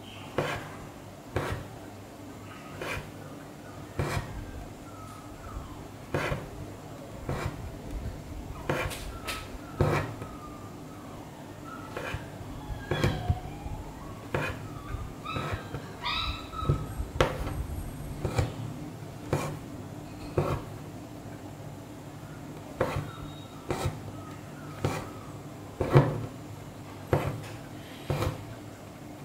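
Embroidery needle punching through tightly stretched fabric and thread drawn after it, giving sharp ticks about once a second as each stitch is made.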